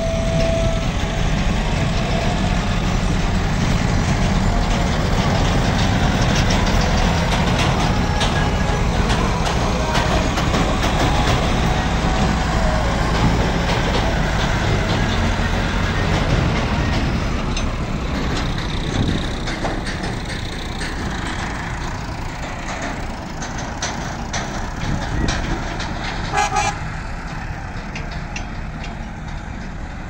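Tractor diesel engines running steadily under load as tractor-trailers pass, loudest in the first half and fading after about 18 seconds. A short horn tone sounds right at the start.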